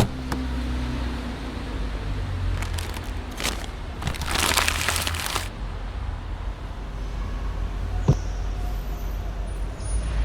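Layered foley and sound effects over a steady low rumble: a sharp hit at the start, scattered clicks, a noisy rush lasting about a second from around four seconds in, and a single sharp knock about eight seconds in.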